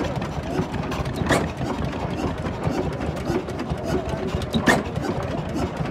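Vintage stationary engines running with a steady fast chugging, with a sharp bang about every three seconds, twice here.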